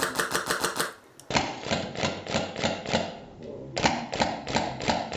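Airsoft rifle firing on full auto: long strings of rapid, evenly spaced clicking shots, broken by short pauses about a second in and again a little past three seconds.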